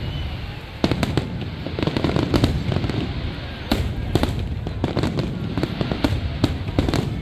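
Fireworks display: many sharp bangs and crackles in quick succession, some clustered close together, over a steady low rumble.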